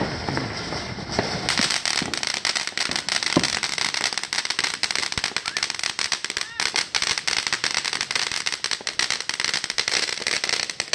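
Ground fountain firework spraying sparks with a hiss, which turns to a dense, rapid crackling about a second and a half in and keeps crackling.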